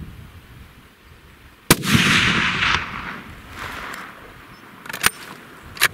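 A single hunting-rifle shot about two seconds in, its report echoing for about a second. Two short sharp clicks follow near the end.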